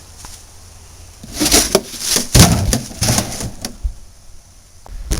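A run of sharp knocks and thumps lasting about two and a half seconds, with the loudest knock about two seconds in: a mishap, such as a slip or something knocked over.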